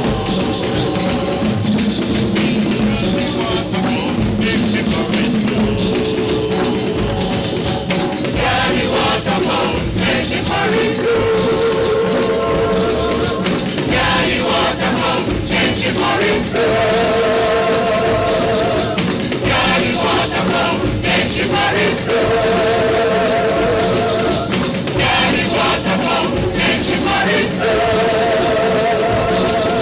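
Drums and a choir of singers performing music for a Yanvalou, the Haitian ritual dance for Dambala. Steady drumming runs under the voices, and from about a third of the way in the choir holds long wavering notes in repeated phrases.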